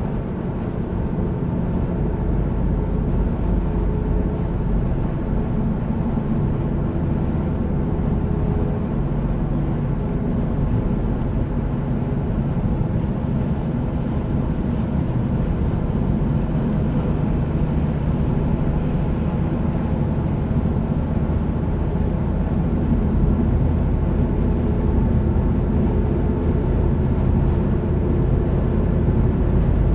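Steady road noise inside a moving car's cabin: tyre noise and engine hum while driving, growing a little louder near the end.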